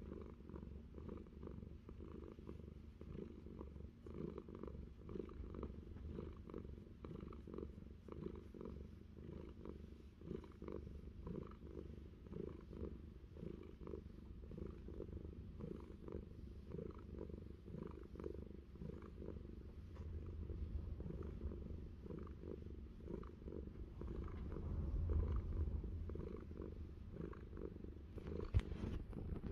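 Domestic cat purring steadily in a continuous run of pulses while being scratched on the head and behind the ear. A single brief knock sounds near the end.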